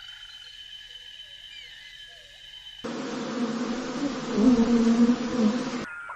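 Honeybees buzzing as a crowded mass on the comb: a loud, dense, steady hum that starts about three seconds in and cuts off shortly before the end. Before it come quieter steady high tones with small chirps.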